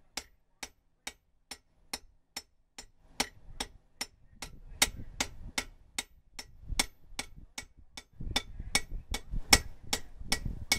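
Blacksmith's hand hammer striking hot coil-spring steel on an anvil in a steady, even rhythm of about three blows a second while forging an axe head.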